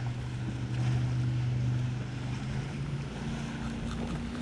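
A boat motor runs with a steady low hum; its pitch shifts higher about three seconds in.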